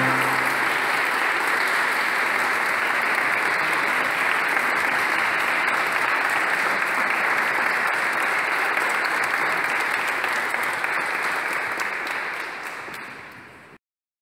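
Congregation applauding: steady clapping from many hands that fades away and then cuts off suddenly near the end.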